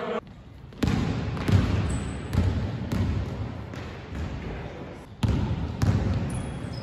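Basketball bouncing on a hardwood court during play, a few irregular thumps that echo in a large sports hall.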